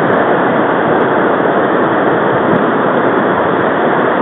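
Loud, steady rush of river water pouring through a narrow weir chute and churning in the whitewater below it.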